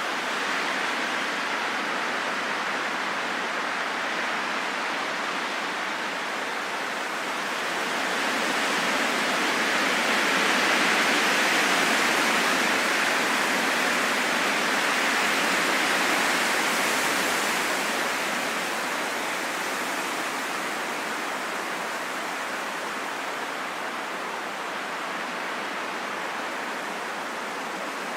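Wind blowing as a steady rushing noise, building to a stronger gust in the middle and then easing back.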